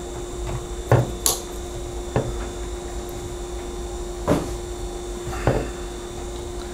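About five separate sharp clicks and knocks as a Walther PPQ pistol with a fitted magwell is handled and its cross pin pressed back into the grip. A faint steady hum runs underneath.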